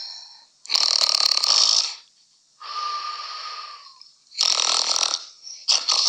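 A person snoring loudly: a run of harsh, rasping snores about a second apart, one of them a softer breath with a whistling note.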